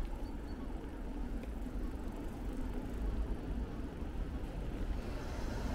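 Steady low rumble and hiss of a bicycle rolling over brick paving, with wind across the microphone.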